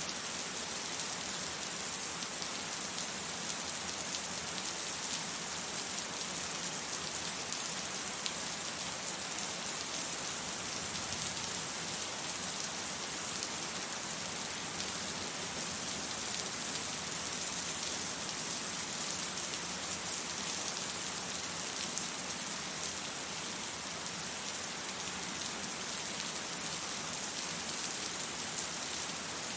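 Steady rain falling and pattering on surfaces, even throughout with scattered drop ticks and no thunder.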